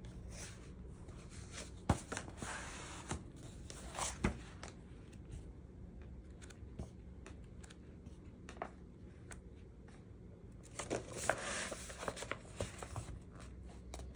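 Pages of a paperback coloring book being handled and turned: paper rustling in two spells, about two seconds in and again around eleven seconds, with scattered sharp taps and clicks between.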